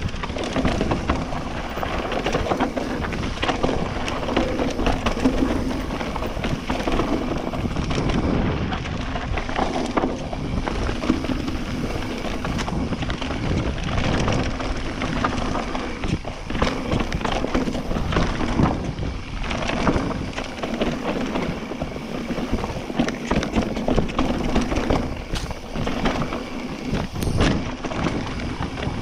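A mountain bike ridden fast down a dirt singletrack: a continuous rumbling rush from the tyres on dirt, broken by frequent sharp knocks and rattles as the bike goes over bumps.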